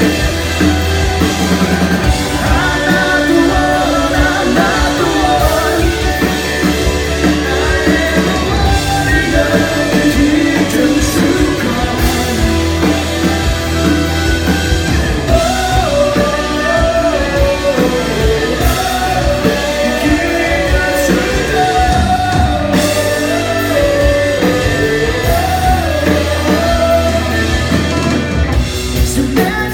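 Rock band playing live: guitars, drum kit and a sung lead vocal, loud and continuous, heard from among the audience in the hall.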